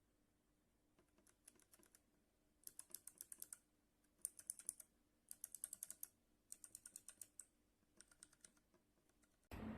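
Mechanical keyboard with Kailh BOX Thick Click clicky switches being typed on in short bursts, several sharp clicks per burst, heard faintly.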